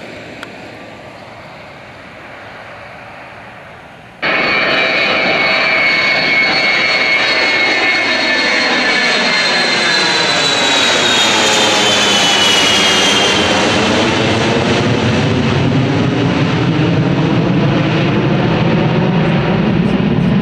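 A smaller twin-engine aircraft fades away. About four seconds in there is a sudden cut to a Boeing E-3 Sentry's four jet engines passing low overhead, loud, with a high whine that falls in pitch as it goes by and a rushing sound that carries on as it climbs away.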